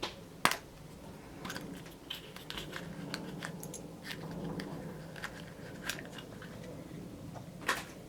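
Scattered small clicks and crinkles from Kinder Surprise eggs and their small plastic Hot Wheels toy parts being handled, with a sharp snap about half a second in and another near the end.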